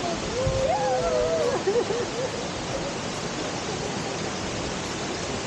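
Steady, even rush of water from a waterfall. A faint voice glides up and down during the first second and a half.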